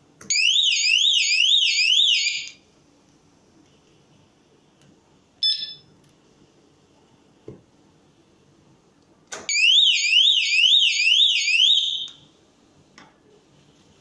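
Anti-theft display alarm host for phones and tablets sounding its electronic siren twice, each time for about two to three seconds: a rapidly repeated rising whoop, a few sweeps a second, that cuts off suddenly. This is the alarm being set off as a connected device's security cable is pulled. A short electronic beep comes between the two alarms.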